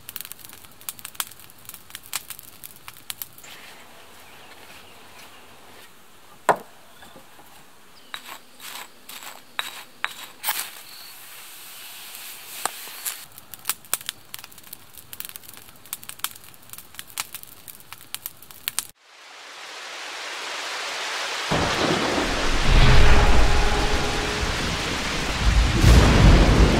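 Campfire crackling with scattered sharp pops and snaps. About two-thirds of the way in this cuts to rain rising in a steady hiss, then thunder rumbling in deep and heavy, loudest near the end.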